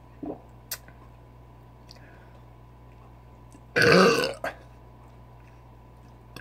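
A man's single loud belch, lasting about half a second, about four seconds in, brought up from the carbonated malt liquor he has been gulping. A couple of faint short clicks come before it, near the start.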